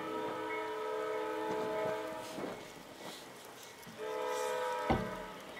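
Diesel locomotive air horn sounding a chord of several steady notes for the grade crossings: a long blast, then a shorter one about four seconds in. A sharp knock comes near the end.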